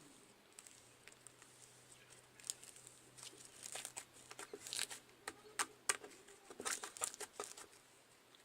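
Homemade foamy slime being squeezed and stretched by hand: an irregular run of soft, sticky crackles and clicks, busier in the second half.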